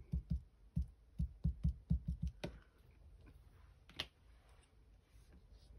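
Small ink pad dabbed repeatedly against a clear rubber stamp on an acrylic block to ink it: about ten quick soft taps over two and a half seconds, then a single sharper click about four seconds in.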